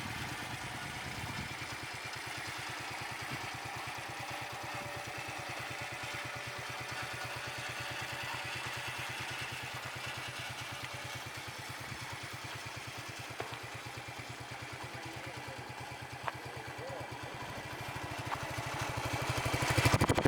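Yamaha Crux's single-cylinder four-stroke engine idling steadily, growing louder near the end.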